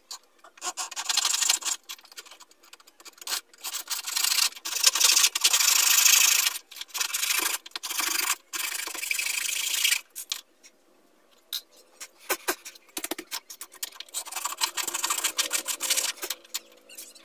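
Circuit board from a Samsung CRT TV being cut apart by hand: spells of noisy cutting strokes broken by short pauses, with a quieter gap about ten seconds in.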